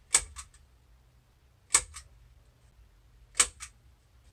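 Staple gun firing three times, about a second and a half apart, driving staples through fabric into a wooden frame: each shot a sharp snap followed by a smaller click.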